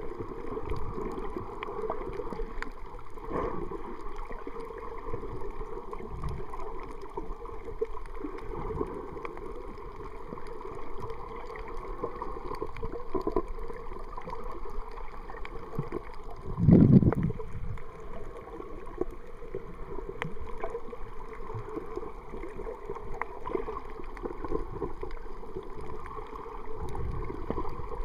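Muffled, steady water noise recorded underwater in shallow surf, with a louder low thump about seventeen seconds in.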